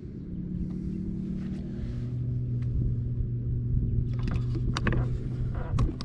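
Boat motor humming steadily, its pitch stepping down about two seconds in, with a few light clicks near the end.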